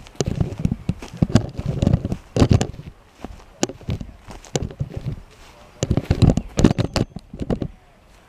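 Footsteps walking across a lawn scattered with dry sticks and leaves, close to the microphone, in an uneven series of loud steps and crackles that stops shortly before the end.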